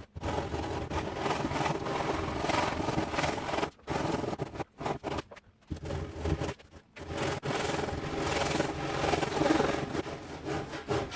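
A saw cutting into the scrap-2x4 timber of a workbench top, running in several long stretches broken by short pauses.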